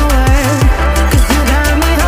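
Background electronic music with a steady beat and sliding bass and synth notes.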